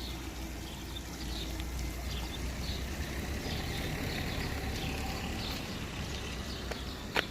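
Fountain water running and splashing steadily, with faint bird chirps above it. One sharp click near the end.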